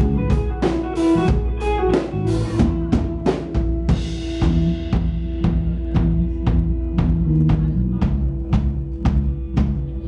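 Live rock band playing: a drum kit beats out a steady rhythm, about two hits a second, under held electric guitar notes. The cymbal wash drops away about four seconds in, leaving mostly kick and snare.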